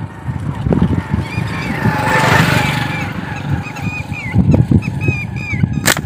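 Birds in the tree calling, a quick run of short repeated calls from about a second in, over low buffeting on the microphone. Near the end comes one sharp snap of a slingshot shot being released.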